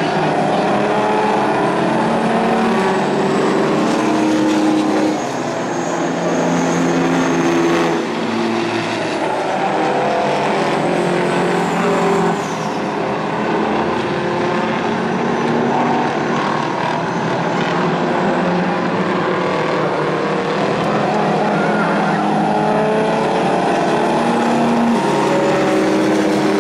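Diesel engines of several racing semi trucks running hard on a dirt oval, several engine notes overlapping and shifting in pitch as the trucks accelerate and lift through the turns.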